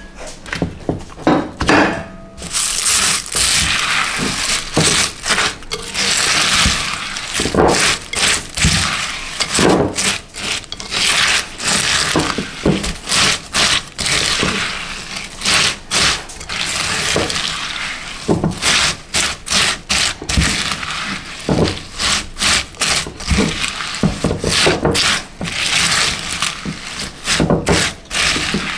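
A spoon stirring cornflakes into melted chocolate in a ceramic bowl: repeated scraping against the bowl with the crackle of the flakes being broken up.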